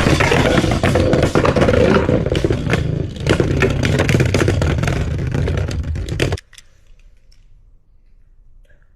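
Two Beyblade X spinning tops launched together, whirring and rattling around a plastic stadium and clashing with rapid clattering knocks. The racket cuts off suddenly about six seconds in, leaving near quiet.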